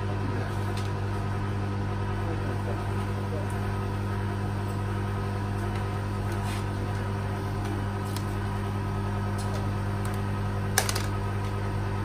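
Hoover Zodiac 12 front-loader's drain pump running with a steady hum while the machine drains after the wash, with one sharp click near the end.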